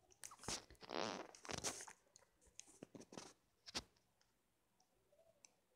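Faint rustling and a few short, sharp clicks: a phone being handled and its touchscreen tapped while a design is edited.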